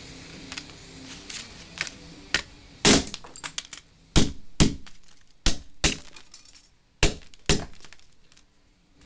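Hammer blows smashing a clear plastic audio cassette on a table: about seven sharp cracks, mostly in pairs, with small clicks and rattles of broken plastic between them.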